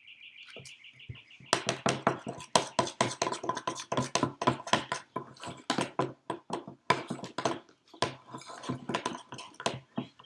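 A spoon stirring thick dough in a bowl, knocking and scraping against the bowl in quick, irregular strokes that start about a second and a half in.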